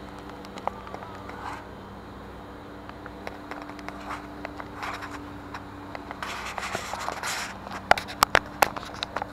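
Handling noise of a 360 camera held in the hand: fingers scraping and rubbing against the camera body close to its microphone, then a run of sharp clicks and taps near the end, over a steady low hum.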